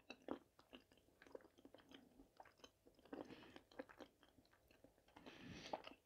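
Faint, close-miked chewing of soft boiled potato dumplings, with small wet mouth clicks and a few brief soft smacking sounds, the clearest near the middle and near the end.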